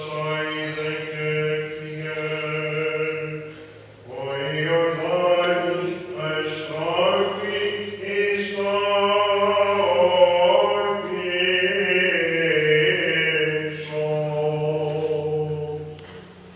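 Byzantine chanting by a solo male chanter: long held notes ornamented with melismatic runs, sung in phrases with a short breath about four seconds in and another near the end.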